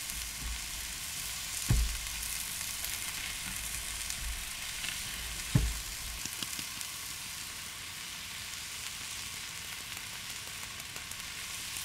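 Steak frying in a cast-iron skillet on a propane camp stove, a steady sizzle. Two brief thumps come through, about two and six seconds in.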